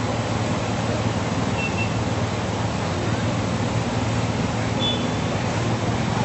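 Palar River floodwater rushing and churning down a street in a steady, unbroken noise.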